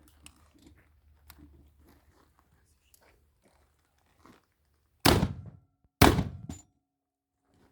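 Two shots from a double-barrel hammer shotgun, about a second apart, each a loud sharp blast that dies away quickly. Before them, faint clicks and handling noise.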